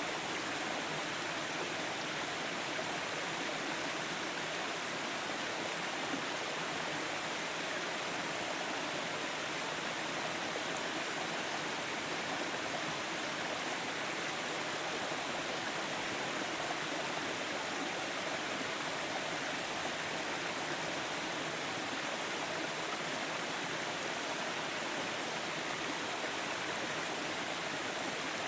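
Forest stream: water running and rushing steadily over rocks, a constant even rush with no changes.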